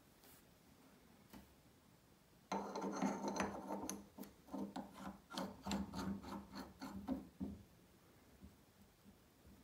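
Metal parts of a lapping vise scraping and clicking as it is handled and adjusted by hand, a stretch of about five seconds starting a couple of seconds in.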